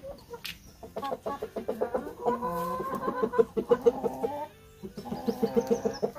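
Brahma chickens clucking: a run of quick repeated clucks with a longer drawn-out call among them, a short pause, then another quick run of clucks near the end.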